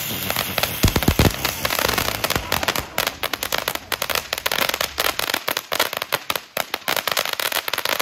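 Ground fountain fireworks hissing as they spray sparks, with a dense run of small crackling pops that grows sharper and more frequent from a couple of seconds in.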